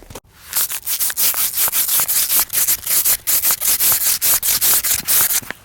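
Rapid, rhythmic rubbing strokes, several a second, like something being scrubbed or sanded back and forth, starting abruptly and stopping shortly before the end.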